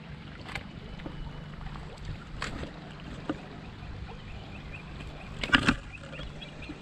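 A Murray cod splashing in shallow river water at the bank while held on a lip grip for release. There are a few scattered knocks, and a loud double splash about five and a half seconds in.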